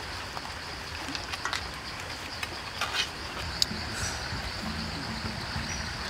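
A steady, high insect drone from the surrounding forest, with a few sharp clicks and cracks as cooked crabs are handled and their shells pulled apart over a steel tray; the sharpest crack comes about halfway through.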